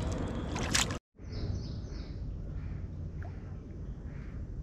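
Shallow tidal water sloshing and splashing under a steady low noise, with a sharp splash just before a brief dropout about a second in.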